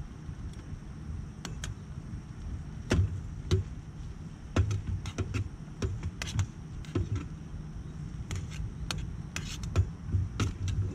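Metal utensil clinking and scraping against a small steel camping pot as food is stirred on a canister gas stove, in irregular sharp knocks that come more often after a few seconds, over a steady low rumble.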